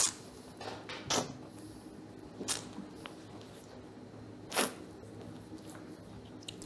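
People tasting champagne drawing air in sharply through the mouth, four short intakes, over a faint steady low hum of room tone.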